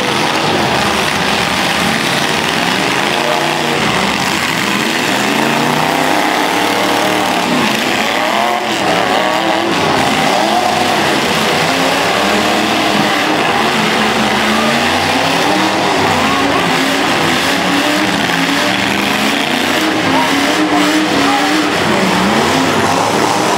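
Several demolition derby truck engines revving at once, their pitches rising and falling over one another in a loud, continuous din.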